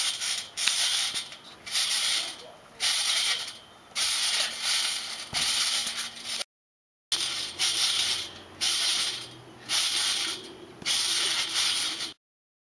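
Trampoline springs and mat rasping and rattling in a steady rhythm, about once a second, with each bounce. The sound cuts out briefly twice.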